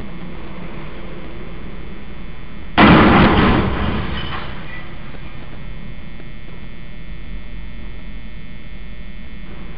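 Truck's trash compactor load hitting the steel crash beam and railroad trestle: one loud metallic bang about three seconds in, ringing briefly as it dies away, over a steady background noise.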